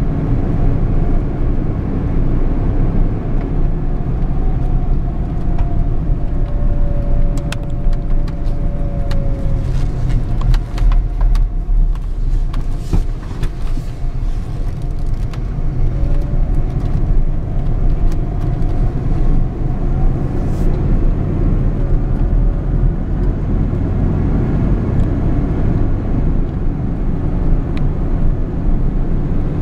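1996 Ford F-150 pickup being driven slowly, heard from inside the cab: steady engine and tyre noise, with scattered light clicks and rattles through the middle stretch.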